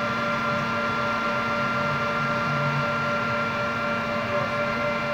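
Steady machine hum: an even noise with several constant tones, unchanging throughout, like a fan or air conditioner running in the room.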